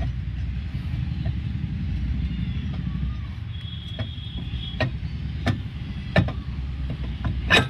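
Steel brake drum being fitted over new drum-brake shoes: several sharp metal knocks and clanks from about four seconds in, the loudest near the end, over a steady low rumble.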